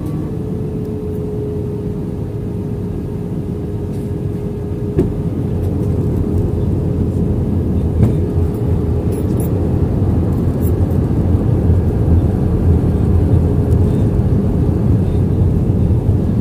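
Cabin noise in an Airbus A320-200 on final approach with flaps full and landing gear down: a steady, low rush of airflow and engine sound that grows gradually louder. A faint steady hum fades out about five seconds in, and there are a couple of light clicks.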